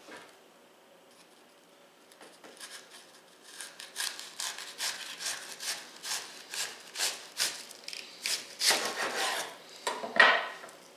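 Serrated knife sawing back and forth through a raw cabbage wedge on a wooden cutting board, a few seconds in, in quick repeated strokes. Near the end there is a louder knock on the board as the slice comes free and the knife is set down.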